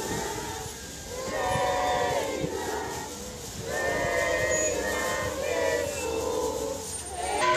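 A crowd of people singing together in unison, in phrases of about two seconds separated by short breaths, typical of a procession hymn.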